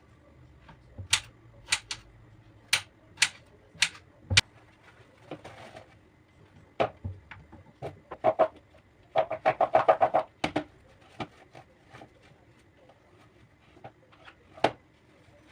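A series of sharp clicks and knocks from objects being handled, with a quick run of rapid taps about nine seconds in.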